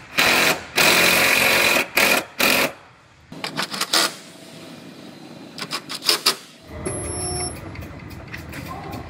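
Cordless impact driver hammering sheet metal screws into a car's replacement quarter panel, in several bursts of a second or less, then a few shorter bursts. About two-thirds of the way through, a steady low hum takes over.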